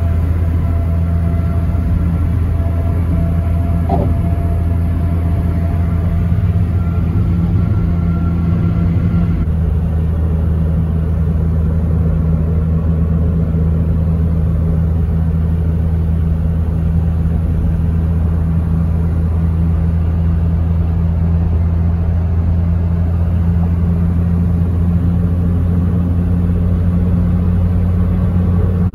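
Steady low drone of a car on the move: engine and road noise, with the higher hiss dropping away about nine seconds in.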